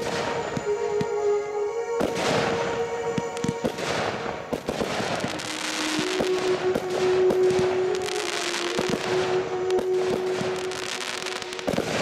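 Aerial fireworks display: dense crackling and popping from bursting shells, building up about two seconds in, over music with long held notes.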